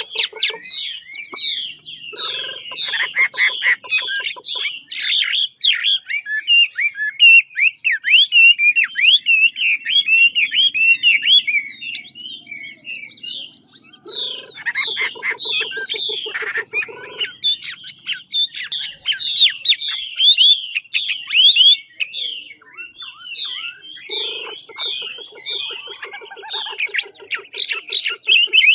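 Chinese hwamei (Garrulax canorus) singing: a long, loud, nearly unbroken run of rapid, varied whistled notes, with three stretches of lower, fast rattling notes mixed in.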